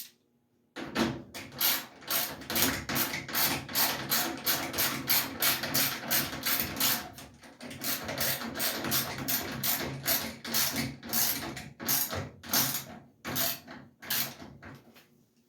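A ratcheting hand tool clicking in quick, even strokes, about three a second, as it drives home the screw that fastens the washer's ground cable to the frame. It starts just under a second in.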